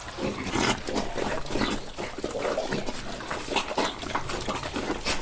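Several domestic pigs eating: a busy, irregular run of chomping and smacking mixed with short grunts.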